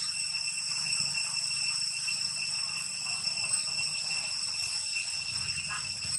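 Steady, high-pitched insect drone holding one ringing pitch, over a low rumble and faint rustling.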